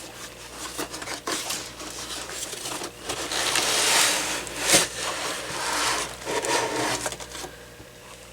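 Rustling and rubbing of a phone's retail packaging being handled, swelling for a couple of seconds mid-way, with a sharp knock a little before the five-second mark.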